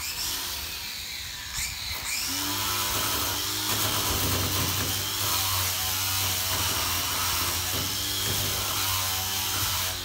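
A handheld power tool running continuously, its pitch wavering as it works.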